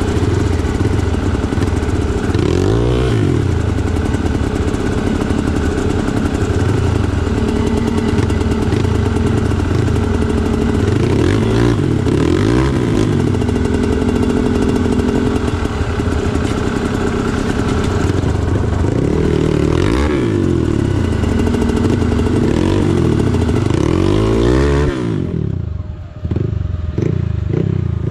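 Trail motorcycle engine revving up and down again and again as it is ridden along a trail, with some clatter and a steady hiss. About three seconds before the end the revs fall away and the hiss cuts out, leaving a lower engine sound and a few knocks.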